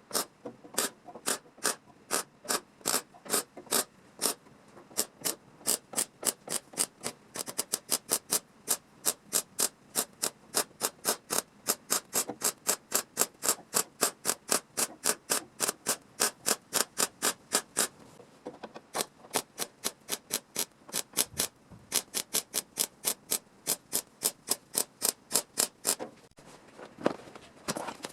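A hand tool working car-body sheet metal in a steady run of short, sharp metallic strokes. It goes about two strokes a second at first, then quickens to three or four a second, with a short pause about eighteen seconds in.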